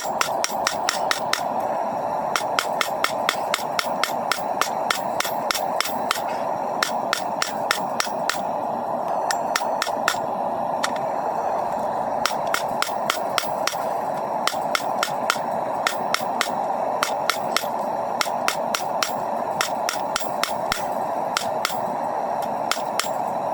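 Hand hammer striking hot coil-spring steel on an anvil, a steady run of ringing blows at about three a second as the blade is squared up, over a constant rushing noise.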